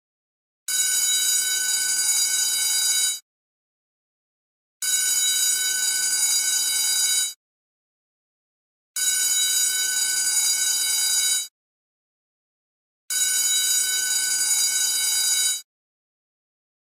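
Electric school bell ringing in four identical rings of about two and a half seconds each, with a second and a half of silence between them, at one steady pitch.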